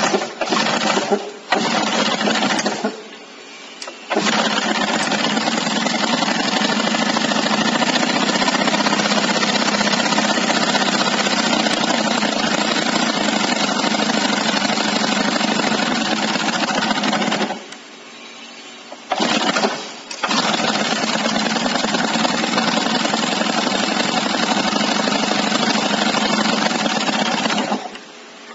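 YN27C handheld gasoline rock drill, its two-stroke petrol engine running at full throttle while the drill hammers into a concrete floor. It drops to a much quieter idle about three seconds in, again about two-thirds of the way through with a short burst of revs, and once more near the end.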